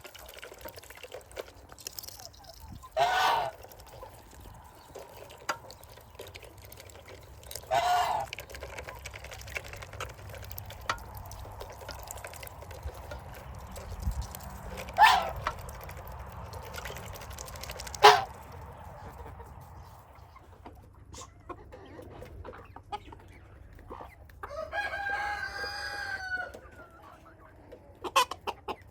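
A flock of chickens clucking, with several loud short squawks spread through, and a rooster crowing once near the end.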